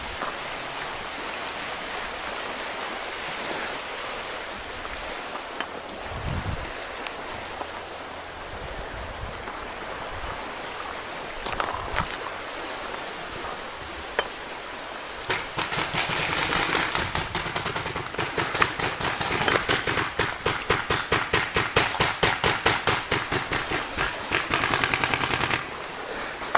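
Paintball marker firing a rapid string of shots, several a second, for about ten seconds from a little past halfway. Before it there is a steady rustling hiss with a few single clicks.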